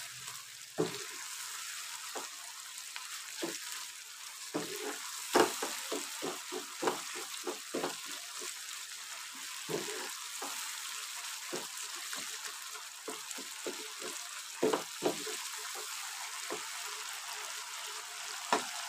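Tomato masala sizzling as it fries in oil in a non-stick frying pan, its water cooked off, while a wooden spatula stirs it with frequent short scrapes and knocks against the pan.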